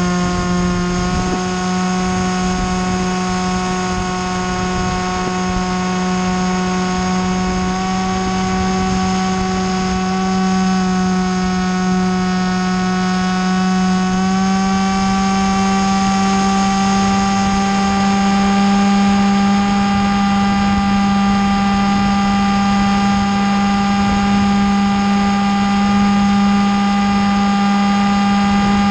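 Steady motor-and-propeller drone of the small aircraft carrying the camera in flight, a single humming pitch that steps up slightly about a second in and again about halfway through, over a low wind rumble.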